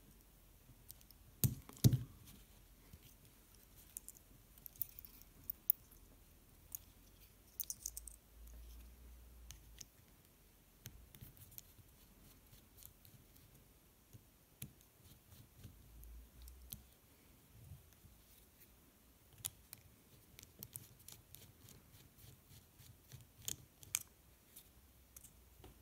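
Quiet, scattered clicks and scrapes of a precision screwdriver working small screws out of a DJI Mavic Pro gimbal's metal housing, with one louder knock about two seconds in.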